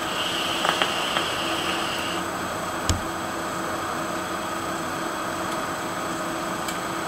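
Vape mods being fired and drawn on: a faint high hiss for about the first two seconds with a few light clicks, then a soft thump about three seconds in, over a steady background hiss.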